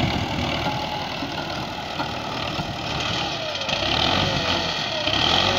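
Belarus tractor's diesel engine running steadily while its front loader digs into a dirt pile, with a faint whine that dips and rises in pitch in the middle.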